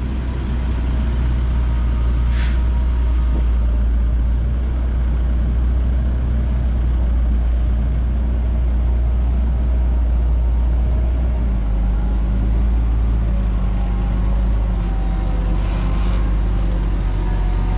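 Heavy diesel equipment engine running steadily, its note changing about two-thirds of the way through, with a short air hiss like an air-brake release about two seconds in and a fainter one near the end.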